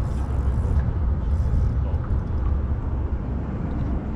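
Steady low rumble, strongest in the deep bass and fluttering slightly in level, with no clear single event.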